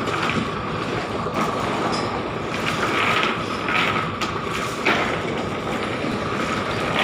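Steady drone of fishing-boat machinery, with a few sharp metallic clinks from the chain-weighted trawl net dragging across the wooden deck.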